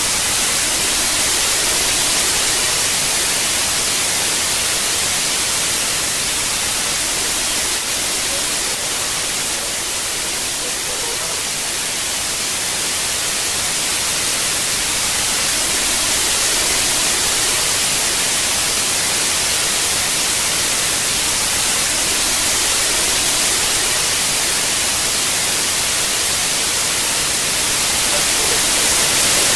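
Loud, steady television static: an even hiss of white noise, strongest in the treble, easing slightly partway through and swelling near the end.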